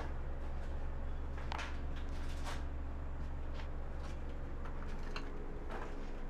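Soft rustles and scattered clicks from a handheld phone being moved about, over a steady low hum.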